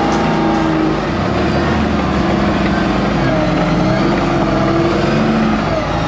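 Tracked armoured personnel carrier's engine running steadily as the vehicle drives forward at low speed.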